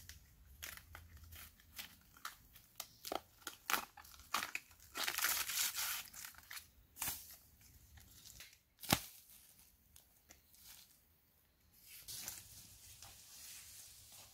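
Banana stalk being stripped by hand: a run of crisp snaps and fibrous tearing as layers are cut and pulled off, with a longer tearing stretch about five seconds in and one loud sharp snap about nine seconds in. Softer rustling follows near the end.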